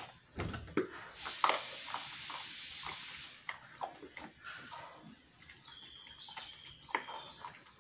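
Rottweiler chewing and crunching mutton bones, a run of irregular sharp cracks and clicks. A steady hiss from another source sounds for about two seconds, starting about a second in.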